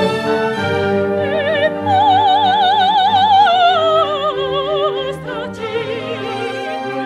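Classical soundtrack music: a soprano voice singing with a wide vibrato over sustained orchestral accompaniment. She holds a high note from about two seconds in, then descends in a falling phrase.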